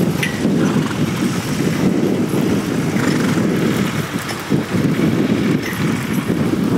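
Wind buffeting the microphone in a loud, gusty rumble, with a few faint clinks.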